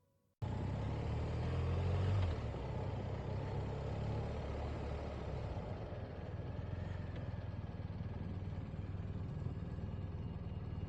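BMW R 1250 GS Adventure motorcycle's engine running, with a deep steady rumble and wind and road noise, cutting in abruptly about half a second in. It is loudest for the first couple of seconds, then settles to a steady level.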